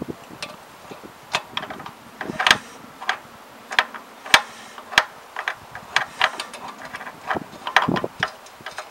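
Spanner working on a motorcycle's exhaust mounting bolts: a string of sharp metallic clicks and ticks at irregular intervals, some in quick pairs.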